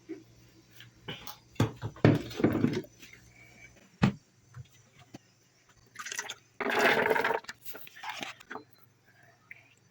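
Handling noises: scattered knocks and clatters, with louder noisy bursts about two seconds in and again about seven seconds in.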